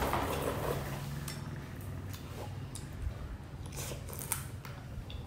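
Close-up eating sounds: a slurp of noodle soup from a spoon in the first half-second, then wet chewing of steamed prawn with many short mouth clicks.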